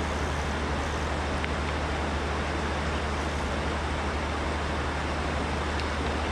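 Steady rushing noise of river water flowing, with a constant low rumble under it.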